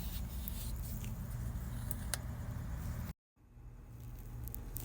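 Light clicks and rubbing of brake pads being handled and greased, over a steady low hum. The sound cuts out completely for a moment about three seconds in.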